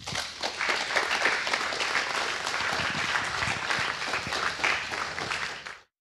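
Audience applauding, a dense steady patter of many hands clapping that cuts off suddenly just before the end.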